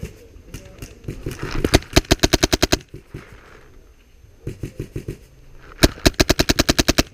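Airsoft rifles firing on full auto: a burst of about ten rapid shots about two seconds in, a few single shots around the middle, and a second burst of about a dozen shots near the end.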